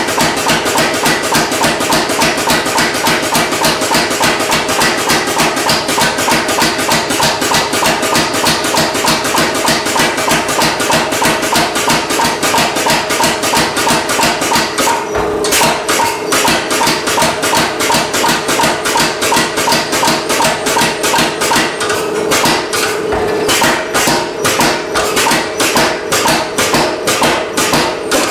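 MZ75 pneumatic power hammer striking hot carbon steel in a fast, steady run of blows, several a second, with a couple of brief let-ups about halfway through and again a little later.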